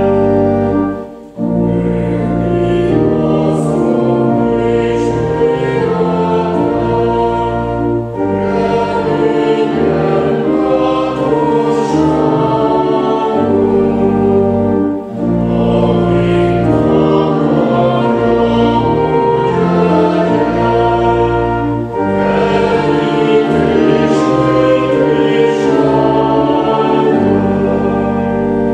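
Congregation singing a Lutheran hymn to organ accompaniment in sustained chords, phrase by phrase, with a brief break about every seven seconds between lines.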